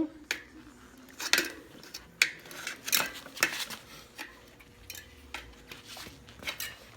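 Tire lever being worked under a bicycle tire's bead against the wheel rim: irregular sharp clicks, clinks and scrapes as the tool catches and levers the bead.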